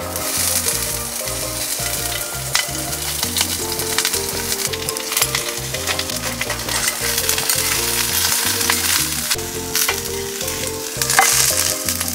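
Sliced green peppers sizzling loudly in a hot frying pan as they are tipped in and stir-fried; the sizzle starts suddenly as they hit the pan, with the clicks and scrapes of stirring throughout and a louder sizzle near the end.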